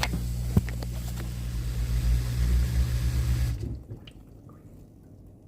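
Newly replaced dishwasher drain pump humming steadily as it pumps water out of the tub on a cancel/drain cycle, with a few light clicks in the first second; it stops about three and a half seconds in.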